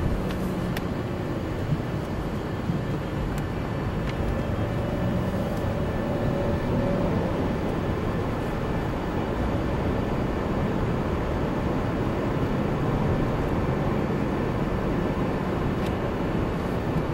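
Steady road and engine noise of a car driving through a road tunnel, heard from inside the cabin as a low rumble. A couple of light knocks come about two and three seconds in.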